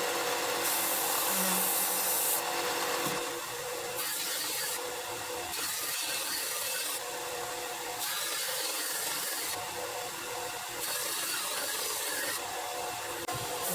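Long abrasive strokes on a steel axe head during cleaning or sharpening, a rasping hiss that swells and fades about every one and a half to two seconds.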